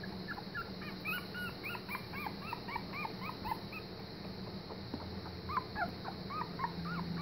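A litter of week-old German Pinscher puppies squeaking and whimpering, many short high squeals a second overlapping from several pups.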